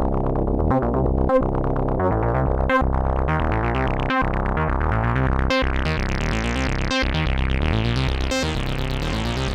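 Dreadbox Typhon monophonic analog synthesizer playing a repeating, evenly paced pattern of bass notes, retriggered about every 0.7 seconds. From about three seconds in, its filter gradually opens and the tone grows brighter.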